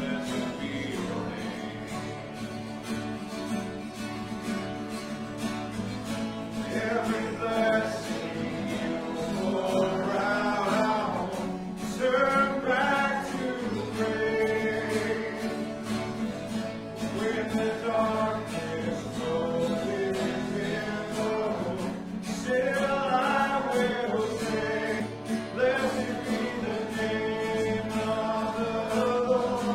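Congregation singing a worship song together, with a guitar-led band accompanying.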